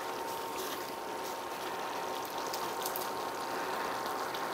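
Pan of chili cooking on a portable cooktop: a steady hiss with a faint steady tone and a few light clicks.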